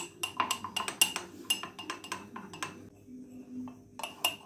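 Metal spoon beating thick instant-coffee paste in a ceramic mug, making fast clinks as it strikes the mug's side, several a second. The clinking pauses for about a second around three seconds in and starts again near the end. This is hand-whipping the coffee into a creamy froth without a beater.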